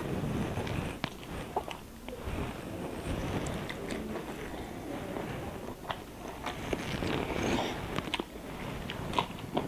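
A person chewing and biting boiled quail eggs with the mouth close to the microphone, with scattered short wet clicks and smacks.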